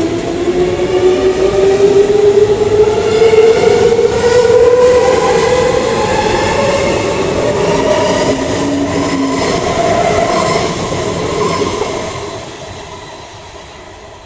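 Stuttgart S-Bahn electric multiple unit accelerating away, its traction motors whining in several tones that climb in pitch over the first few seconds, with wheels running on the rails. The sound fades out over the last couple of seconds as the train draws away.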